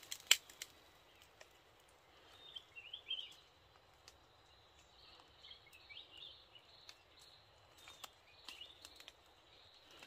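Faint high bird calls, short wavering chirps coming in little bursts every few seconds, with a sharp click or two in the first second.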